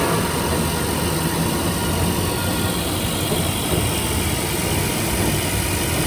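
Milling machine running steadily: a constant low hum under an even hiss.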